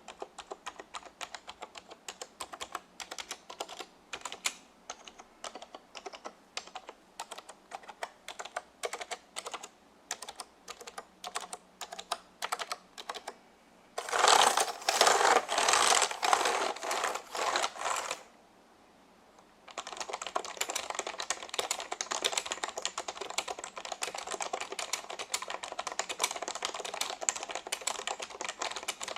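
Typing on a vintage Reuters DK3000 keyboard with Alphameric switches, which the owner takes for the resistive type. Separate keystrokes come at a few per second at first, then a much louder, dense flurry about halfway through, a brief pause, and fast continuous typing to the end.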